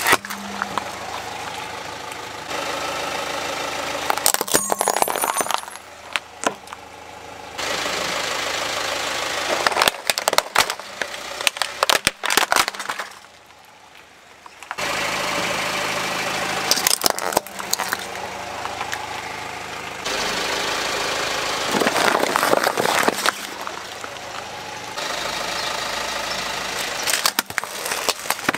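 Car engine running at idle while its tyre rolls over plastic toys, with several bursts of sharp cracking and snapping as the plastic breaks.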